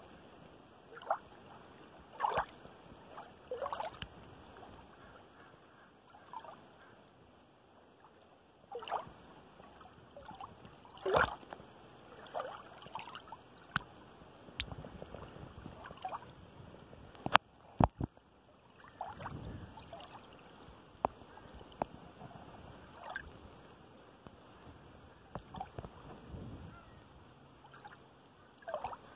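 Shallow water lapping and sloshing in small, irregular splashes. Two sharp clicks come a little past halfway.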